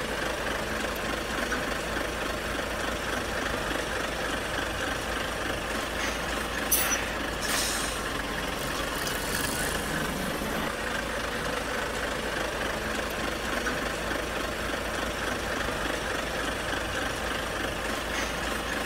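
Steady engine noise, like a heavy vehicle idling, with a couple of short hisses about seven seconds in.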